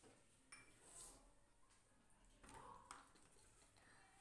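Near silence: room tone with a few faint, light ticks.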